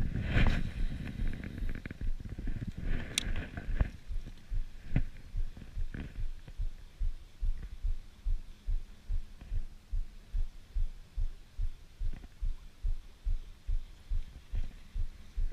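A cast with a fishing rod and baitcasting reel near the start and a sharp click a few seconds in. Then the reel is cranked for the retrieve, heard as steady low thumps about three a second.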